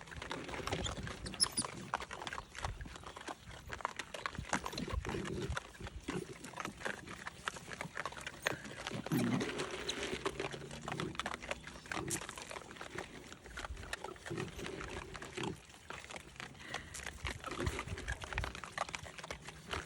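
A group of coatis feeding, with short low calls and many small clicks and scuffles as they scrabble about.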